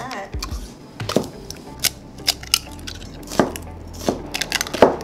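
Eggs being cracked one after another on the rim of a bowl: a string of sharp cracks and taps as the shells break and the eggs drop in.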